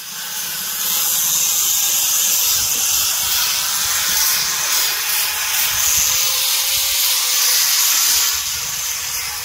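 Handheld power tool running steadily against a stainless-steel railing: a loud, high hiss with a faint whine underneath.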